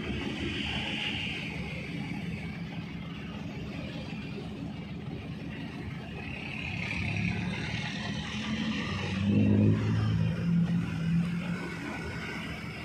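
Large ro-ro ferry's diesel engines running as it manoeuvres alongside the quay, swelling to their loudest about nine to ten seconds in before easing.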